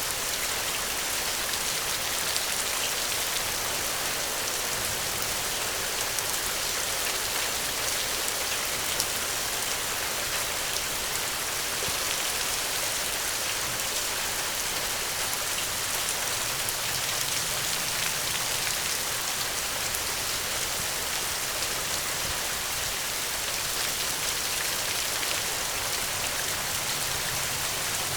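Steady rain falling on a surface, an even hiss with many fine scattered drop ticks.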